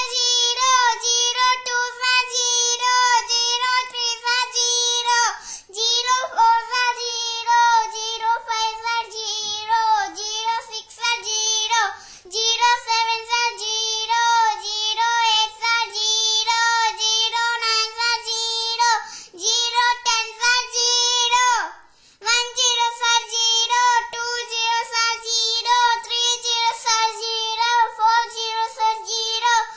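A child's high voice singing the zero times table as a steady sing-song chant, line after line, with brief pauses a few times.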